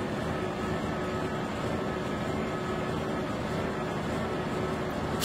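Mobile crane's engine running steadily with a constant hum and whine while the crane hoists a load.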